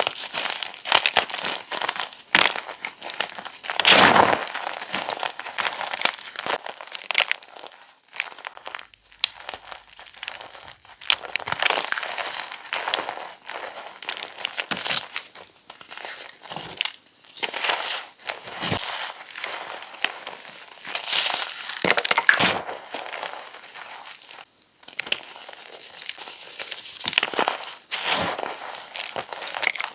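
Chalk being crushed: an irregular, continuous run of crisp crunching and crackling, with the loudest crunches about four seconds in and again around twenty-two seconds.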